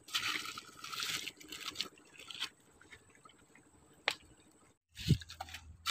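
Shallow river water splashing and sloshing at the bank for about two seconds as a small tilapia is let go into it, followed by a single sharp click about four seconds in.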